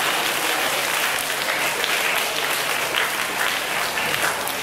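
Audience applauding, a steady dense clapping that thins slightly near the end.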